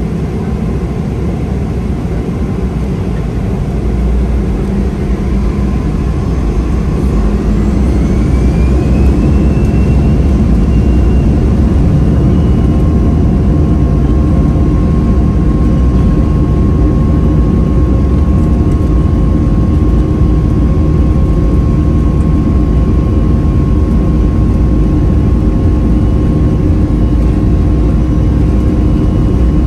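Boeing 737-400's CFM56-3 jet engines heard from inside the cabin, spooling up: a rising whine a few seconds in that levels off into a steady tone over a loud, constant rumble. This is consistent with thrust being set for the takeoff roll.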